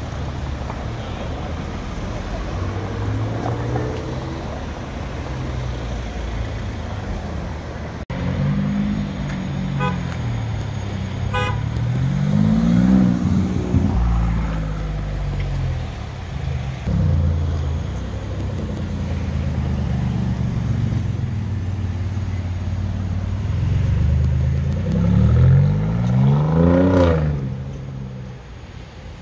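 Sports car engines revving and accelerating, across several short clips. The engine pitch climbs and falls sharply twice: once about midway and again near the end.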